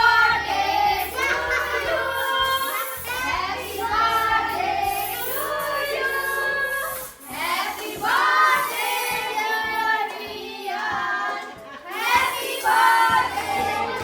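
Several voices, children's among them, singing a birthday song over music.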